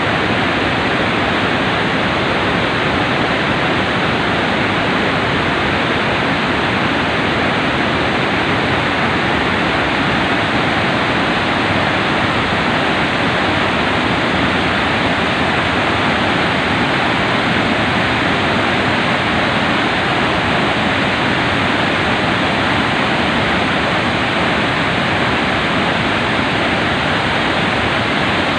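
Waterfall: water pouring and crashing in a loud, steady, unbroken rush.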